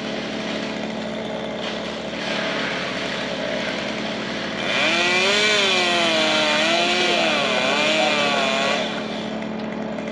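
Chainsaw running up in a dead tree, held at a steady low speed, then revved hard from about halfway through for around four seconds, its pitch sagging and rising as it cuts into the trunk, before dropping back.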